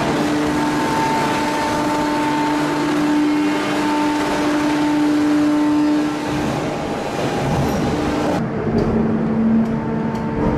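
Hot ring rolling mill running: a steady machine hum over a wide hiss of water spraying onto the glowing steel ring. A little past eight seconds the sound cuts to a lower, steadier machine hum.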